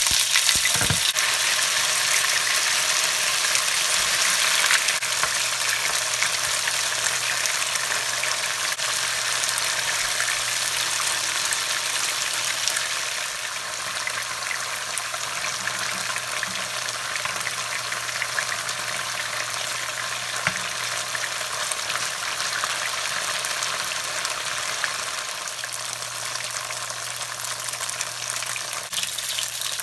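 Tofu cubes frying in hot oil in a pan: a steady, dense sizzle that eases off a little about halfway through, over a faint low steady hum.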